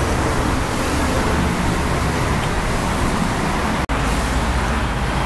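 Steady roadside traffic noise with a low hum underneath; it cuts out for an instant about four seconds in.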